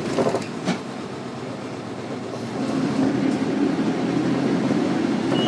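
Inside a Shinki Green Bus route bus under way: its engine and road noise run steadily, with two short knocks or rattles near the start. From about halfway the engine grows louder.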